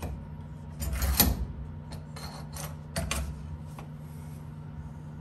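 Clicks and knocks of aluminium parts being handled, as the taildragger pull-handle tube is pushed into the aluminium fuselage side, with the loudest knock about a second in and another about three seconds in. A steady low hum runs underneath.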